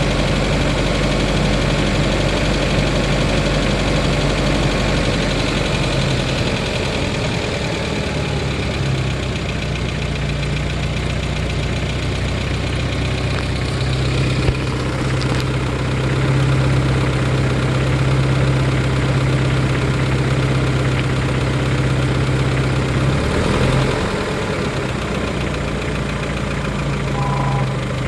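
1993 Geo Tracker's 1.6-litre four-cylinder engine idling with a knocking sound, which the owner thinks kind of sounds like a rod knock.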